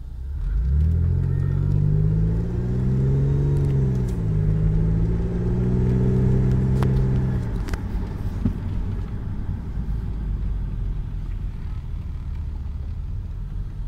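Mitsubishi Galant/Legnum VR-4's automatic car engine heard from the cabin, accelerating from a standstill with the pitch rising, dropping once at an automatic upshift about four seconds in, then rising again. The throttle is lifted about eight seconds in, and the engine note falls away to a low drone with road noise as the car slows in third gear.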